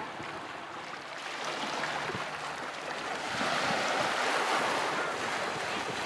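Small sea waves washing and breaking over shore rocks, a steady rushing wash that swells louder about halfway through.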